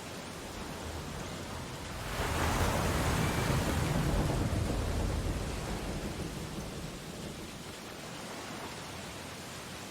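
Ocean surf: a wave breaks and rushes in about two seconds in, then slowly washes away over the next several seconds.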